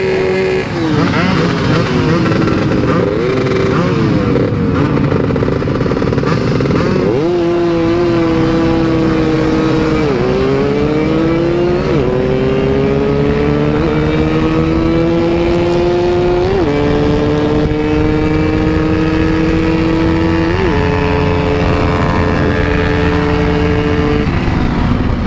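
Motorcycle engines running on the road, heard from a moving bike with road and wind noise. For the first several seconds several engine notes rise and fall; then one engine holds a steady note that dips about ten seconds in, climbs slowly, and has a few short blips of throttle.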